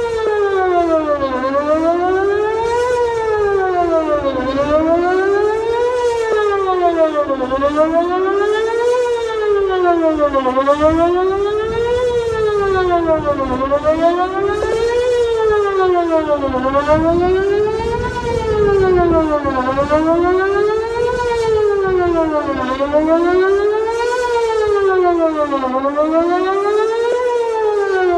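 Whelen WPS 2909 electronic outdoor warning siren sounding a loud wail during a test. Its pitch rises and falls steadily, about one cycle every three seconds.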